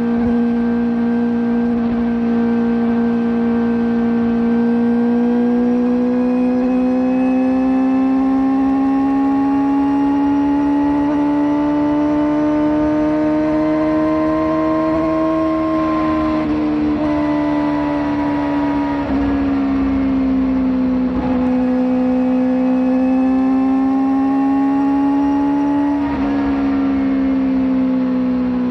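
A Kawasaki ZX-4RR's 399 cc inline-four, with a slip-on exhaust, running at high revs under way. Its steady howl climbs slowly for about fifteen seconds, drops back, rises again and eases off near the end.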